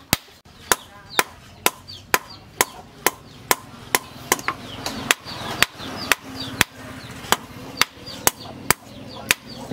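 Hand hammer striking a red-hot steel blade on an anvil in a steady rhythm of about two sharp metallic blows a second: hand-forging the blade.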